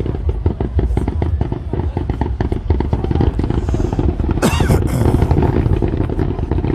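Fireworks display: dense rapid crackling over a low rumble, with a rising whistle and a sharp burst about four and a half seconds in.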